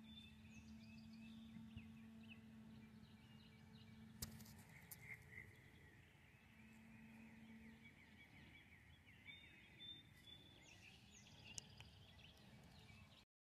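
Near silence with faint songbird chirps and twitters in the background, and a faint steady low hum that stops about four seconds in.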